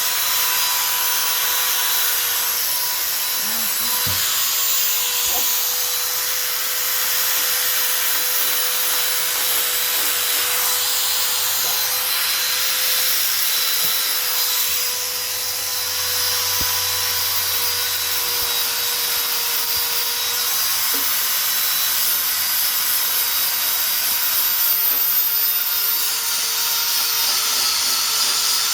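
Electric power sander running steadily against a wooden sculpture: an even motor whine under the hiss of abrasive rubbing on wood.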